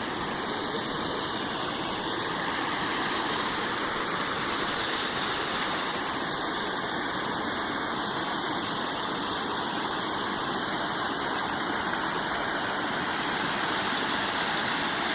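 Small waterfall of rain-swollen mountain runoff, with a steady, even rush of flowing water.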